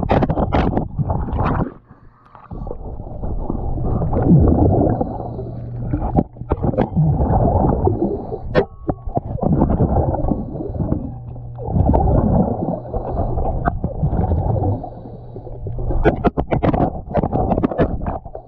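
A diver's regulator underwater: breaths drawn and let out in slow cycles every three or four seconds, the exhaled bubbles gurgling and clicking, over a steady low hum.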